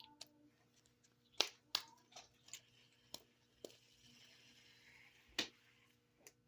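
Small fidget toy being handled: a scatter of about eight sharp clicks and taps spread over several seconds, with a faint rustle between them.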